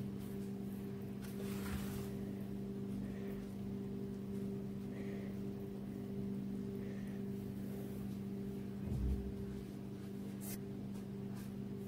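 Steady low electrical or motor hum made of several held pitches, with a single soft low thud about nine seconds in.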